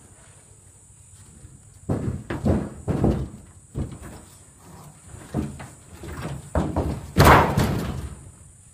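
An overturned car's metal body being banged and crunched as an African elephant bull shoves and tips it with its tusks and trunk. A run of heavy bangs and scrapes starts about two seconds in, with the loudest crash near the end.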